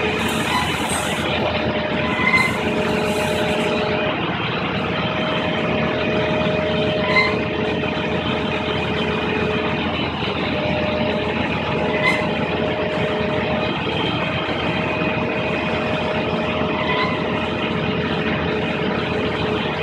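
Heavy vehicle engine running steadily, with a steady whine. Short faint tones sound roughly every five seconds.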